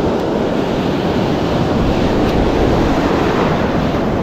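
Surf washing on the shore, with wind buffeting the microphone; a steady, even noise throughout.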